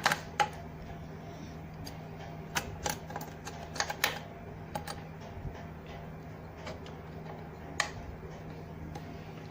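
Scattered small metallic clicks and knocks of sewing machine shuttle-race parts being handled and pressed back into their seat, loudest at the very start, with a cluster about three to four seconds in and one more near the end. A faint steady hum runs underneath.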